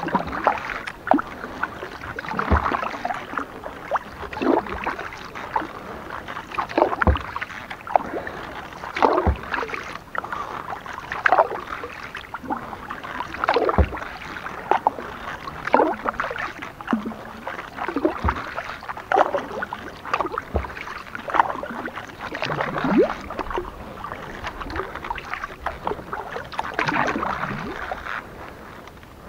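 Kayak paddle strokes in calm water, a steady rhythm of blades dipping and splashing about once a second, with water dripping off the paddle. Now and then there is a sharp low knock.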